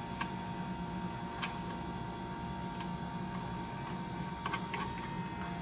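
A few faint, scattered metallic clicks and taps from the nylon lock nuts being started by hand on the upper control arm bolts, over a steady electrical hum.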